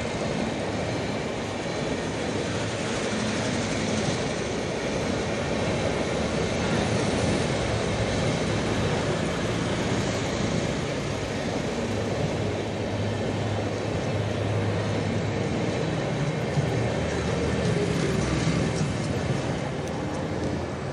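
Express passenger train running through a station at speed without stopping: the steady rush of its coaches and wheels on the rails.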